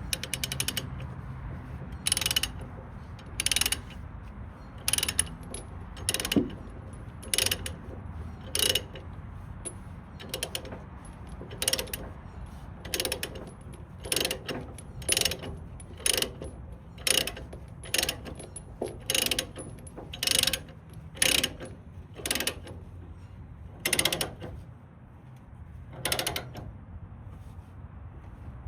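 A ratchet tie-down being cranked to tighten the load securement, one short clicking stroke about every second to second and a half, with a longer pause near the end.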